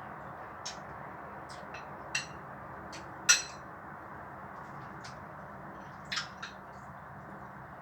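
A fork or spoon clinking against a noodle bowl while eating: about nine short, sharp clinks at uneven intervals, the loudest a ringing one about three seconds in, over a steady low hiss.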